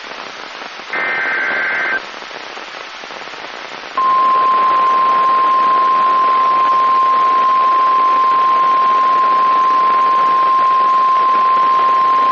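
Emergency Alert System weather-radio alert over radio static. About a second in comes a one-second two-tone warble of the SAME data header. From about four seconds in, the steady single-pitched 1050 Hz weather-radio warning alarm tone sounds, signalling that a new warning follows.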